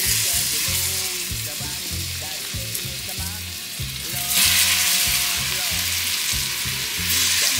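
Seasoned chicken pieces frying in hot oil and burned curry powder in a pot: a steady sizzle that grows louder about four seconds in as another piece goes in.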